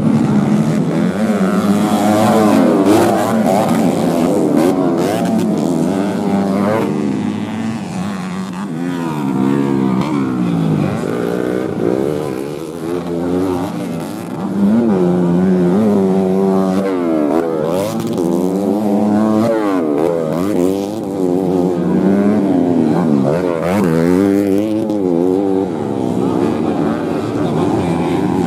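Modified underbone (bebek) racing motorcycles being ridden hard around a dirt grasstrack. More than one engine is heard, each rising in pitch under acceleration and dropping back at gear changes and corners, over and over.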